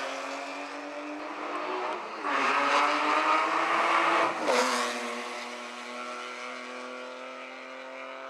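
Rally car engine running at high revs under full throttle. The pitch drops briefly twice, about two and four and a half seconds in, then holds steady while it fades.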